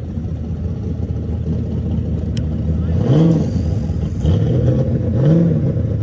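Purple S13 Nissan 240SX drift car's engine idling, with two short throttle blips about three and five seconds in as it is driven down off a trailer.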